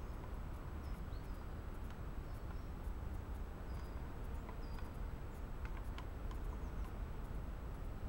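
Woodland ambience: a steady low rumble with several short, high bird chirps through the first half, and a few light clicks as coffee powder is stirred into a mug with a titanium spork.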